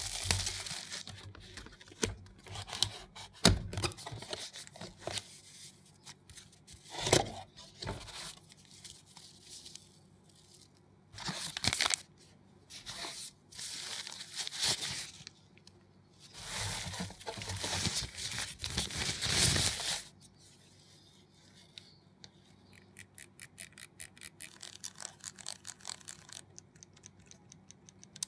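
Cardboard and paper packaging of a camera box being torn open and crinkled in a series of loud bursts, with tissue paper rustling as the furry windscreen is unwrapped. Near the end comes a run of quick small clicks as the camera body is handled.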